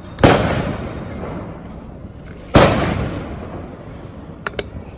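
Two loud Diwali firecracker bangs about two seconds apart, each echoing away over a second or two.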